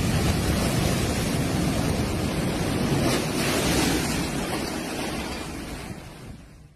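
Storm surf: heavy waves crashing and washing in, with wind noise on the microphone. The sound fades away near the end.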